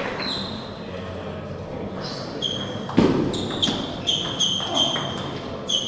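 Table tennis rally: a celluloid ball clicking sharply off the table and rackets about twice a second, starting a couple of seconds in. There is one loud, heavy thud near the middle.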